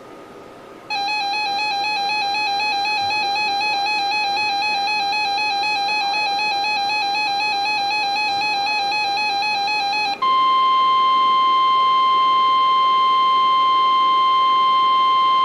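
Electronic emergency alert tones: a warbling alert tone that wavers about four times a second for roughly nine seconds, then a louder, perfectly steady NOAA Weather Radio warning alarm tone for about five seconds. Together they announce that a new warning is about to be read.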